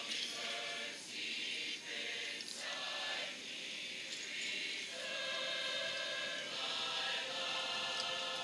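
A soft, choir-like passage in a marching band show: held chords that drop out twice and come back in.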